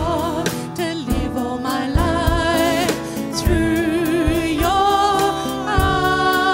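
Church worship band playing a slow worship song: sung vocal melody over acoustic guitar and a drum kit keeping a steady beat.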